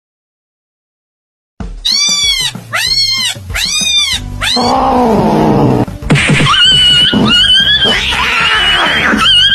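Cat calls: four short meows in quick succession, each rising and falling in pitch, then a long, high, wavering yowl as a cat squares off against a dog.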